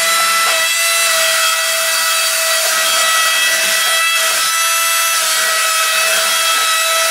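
Suction fan of a JJX-TECH toy RC wall-climbing car running steadily, a loud, high-pitched whine over a rushing hiss, holding the car against the wall as it drives.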